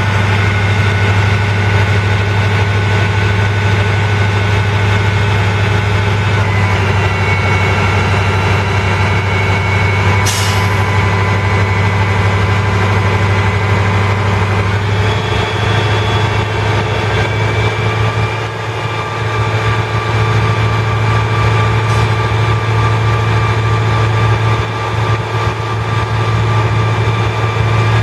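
Caterpillar 3208 turbo diesel V8 engine running steadily, with higher whining tones above it that shift in pitch a couple of times. A short hiss of air comes about ten seconds in.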